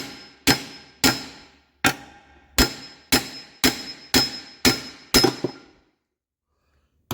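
Hammer blows on metal, about ten strikes at roughly two a second, each ringing briefly, driving a stuck part out of a Kohler K321 engine. The blows stop about six seconds in.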